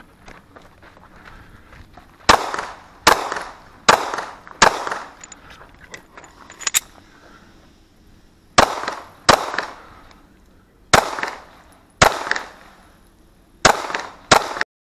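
Pistol firing .22 LR through a CMMG conversion on a PSA Dagger, about ten sharp shots mostly in quick pairs, with short pauses between the pairs. The sound cuts off abruptly just before the end.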